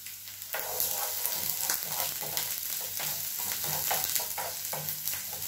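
Diced onion sizzling in a hot frying pan, stirred with a spatula that scrapes and knocks against the pan in quick, irregular strokes.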